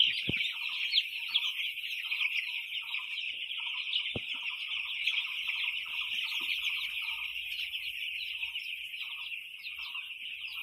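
A flock of young roaster chickens peeping continuously, many voices at once, with lower clucking notes repeating throughout. A single sharp knock sounds about four seconds in.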